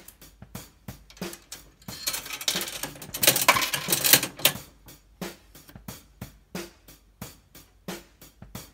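Background music with a steady beat. About two seconds in, the dial of a Bandai Carddass card vending machine is cranked round, giving a loud stretch of rapid mechanical clicking that lasts about two and a half seconds as a card is dispensed.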